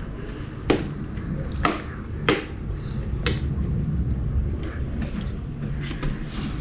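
Cutlery clinking against a dish while eating: four sharp, light clinks about a second apart in the first half, over a low steady hum.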